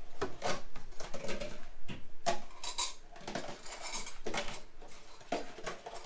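A series of light knocks, clicks and scrapes as a new Samsung microwave oven is handled by hand.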